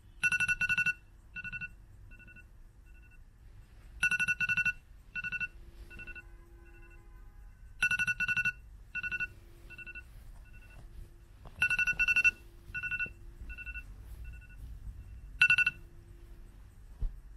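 Smartphone alarm tone ringing: a quick cluster of high electronic beeps followed by fainter, fading repeats, the pattern coming round about every four seconds, five times.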